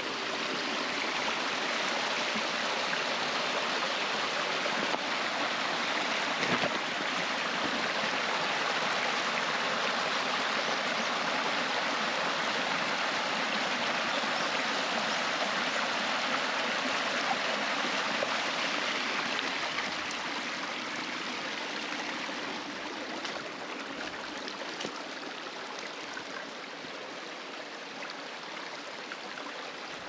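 Mountain stream water rushing steadily over rocks, growing a little quieter about two-thirds of the way through.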